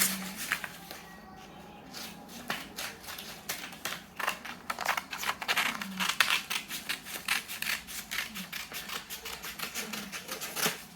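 Scissors cutting colour paper, a rapid, irregular run of crisp snips, most of them between about two and ten seconds in.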